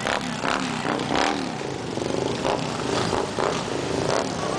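Several motorcycles and scooters pulling away one after another, their engines revving up and falling back as each accelerates past.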